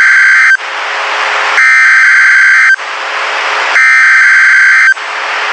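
Emergency Alert System SAME header on a NOAA Weather Radio broadcast: bursts of buzzing digital data tones about a second long, repeating about every two seconds, with radio static hiss between them. One burst ends about half a second in and two more follow; this is the coded header that opens a High Wind Warning alert.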